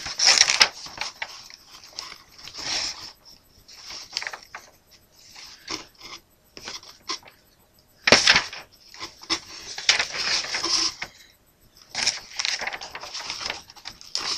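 Irregular rustling and light clicking of a plastic model kit's parts and paper sheets being handled in the box, coming in several louder bursts.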